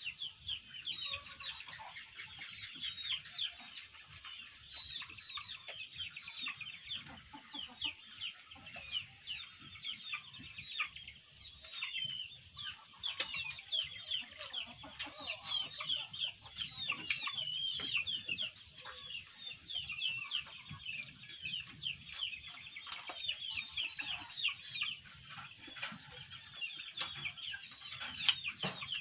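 Chickens calling, a dense, continuous run of short, high peeping calls that fall in pitch, with some clucking.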